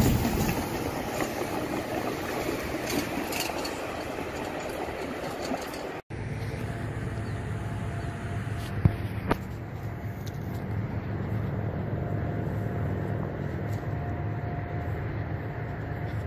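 Diesel freight train running past, a loud rush of wheel and rail noise that fades over the first few seconds. After a sudden break, a steady low diesel engine drone with two sharp clicks.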